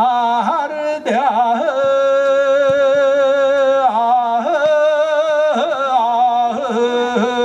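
A male olonkho storyteller singing solo and unaccompanied in the epic's chanting style. Ornamented, wavering notes give way about two seconds in to a long steady held note, then more wavering notes follow.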